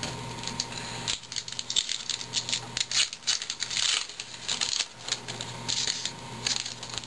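Foil baseball card pack wrapper crinkling and crackling as the pack is opened by hand. It starts about a second in and goes on as a quick, irregular run of crackles and clicks.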